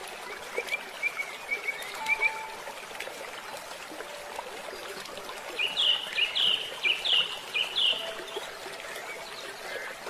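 A stream running steadily, with birds chirping: a few light chirps in the first couple of seconds, then a louder run of chirps from about six to eight seconds in.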